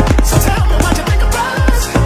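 Upbeat dance-style music with a steady drum beat and a heavy bass line.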